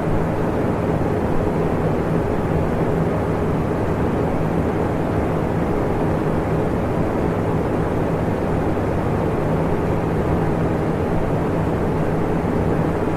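Electric fan running steadily: an even whoosh of moving air with a faint low hum from the motor underneath.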